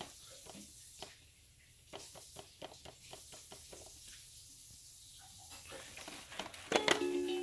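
Irregular light taps and clicks on a baby activity jumper's plastic toy drum. Near the end a pad is pressed with a louder click and the toy starts playing an electronic tune.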